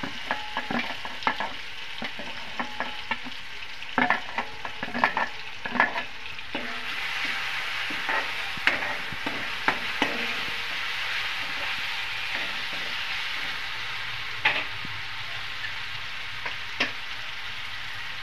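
Tomatoes, garlic and curry leaves frying in oil in an aluminium kadhai while being stirred. A metal ladle clinks and scrapes against the pan many times in the first six seconds. After that a steady sizzle grows louder, with only a few knocks.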